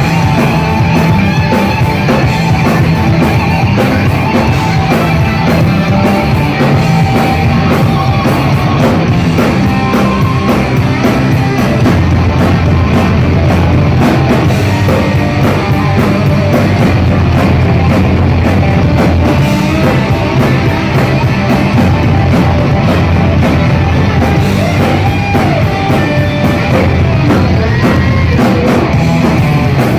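Live heavy metal band playing loud and without a break: distorted electric guitars, bass and a pounding drum kit.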